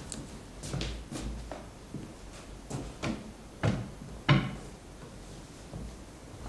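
Irregular knocks and thumps on a wooden stage, about ten of them, the two loudest a little past halfway.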